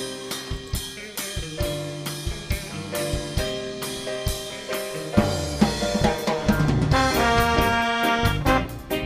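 A live band playing: drum kit with steady snare and bass-drum hits over a bass line, with a brass section holding notes that grow fuller about halfway through and again near the end.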